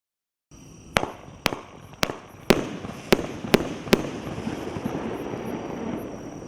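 A 500-gram firework cake (Megabanger 'ME ME ME') firing: seven sharp bangs about half a second apart, then a dense crackling haze.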